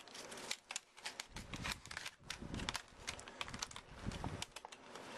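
Cardboard and plastic packaging of a portable charger being opened by hand: a quick run of clicks, crinkles and scrapes, with some dull handling thumps in the middle.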